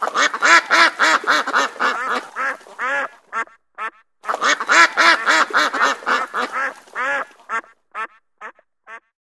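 Ducks quacking in a rapid series of calls, about three or four a second, with a short break about three and a half seconds in; the calls thin out toward the end.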